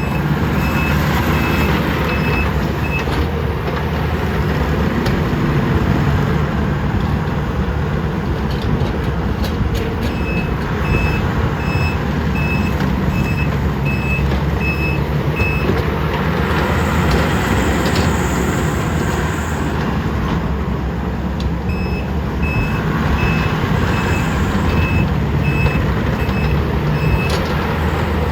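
Diesel engines of a Takeuchi TL12 tracked skid steer and a CAT 308E2 excavator running hard, with a backup alarm beeping about twice a second in three spells. A hiss lasts a few seconds in the middle.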